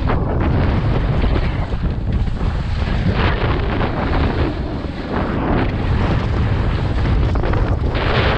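Wind buffeting a GoPro's microphone as a skier descends a steep snow slope, with the skis hissing and scraping across the snow through the turns. The scraping surges loudest about three seconds in and again near the end.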